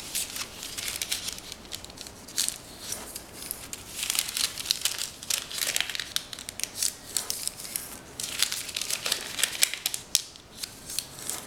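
A square sheet of parchment paper crinkling and crackling in the hands as it is folded, its corners brought into the middle and the creases pressed down. The crackles come irregularly, with a few sharper snaps among them.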